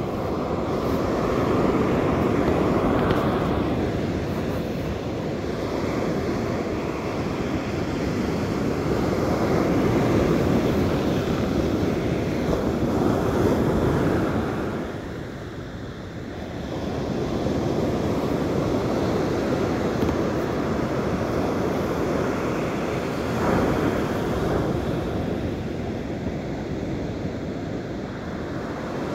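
Ocean surf breaking and washing up a sandy beach, mixed with wind buffeting the microphone. The wash swells and ebbs, easing off briefly about halfway through.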